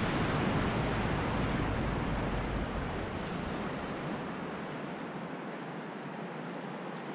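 River whitewater rushing steadily around an inflatable kayak running a rapid. A low wind rumble on the microphone eases off about halfway through.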